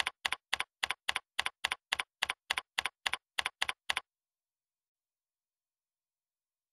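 Computer keyboard keystrokes at an even pace, about three and a half a second and some fifteen in all, stopping about four seconds in.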